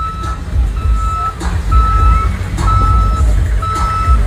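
A vehicle's reversing alarm beeping steadily, one single-pitched beep about every second, over a low rumble.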